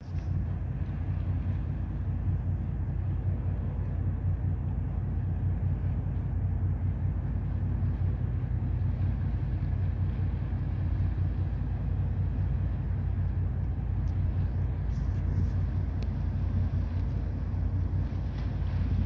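Steady low rumble of a Great Lakes freighter's engines as the ship moves slowly through the harbour.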